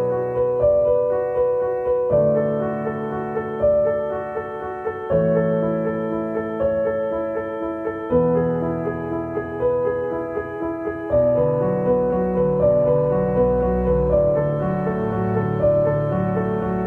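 Background music: a gentle piano piece with a repeating melody over chords that change about every three seconds, and a lower bass line that comes in about two-thirds of the way through.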